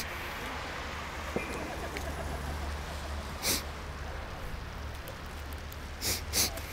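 Steady low rumble of city road traffic, with a short hissing sound about three and a half seconds in and three more in quick succession near the end.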